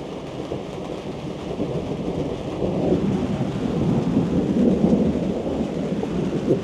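Thunder rumbling over steady rain, swelling to its loudest about four to five seconds in.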